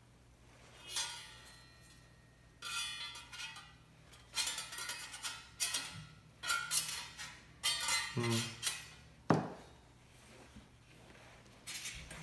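Metal parts of a B4君 folding stainless-steel fire pit clinking, tapping and scraping against each other as it is assembled, many of the knocks ringing briefly; the clatter is busiest in the middle.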